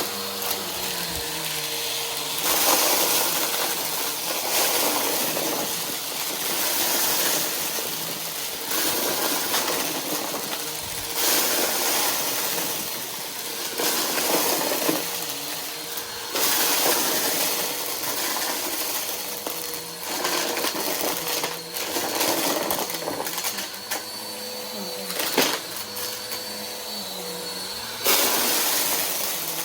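Vacuum cleaner running with a steady motor whine, sucking up crunchy confetti in surges every couple of seconds while its dust bin is overflowing.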